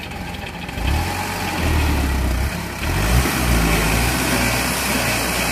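Rice harvester's engine running, then revving up under heavy load about a second in and holding there as the machine strains to climb a steep, muddy slope.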